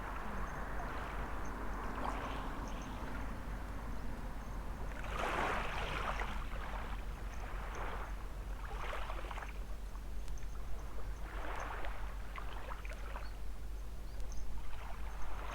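Small waves washing onto a sandy beach, swelling into a louder surge every three to four seconds.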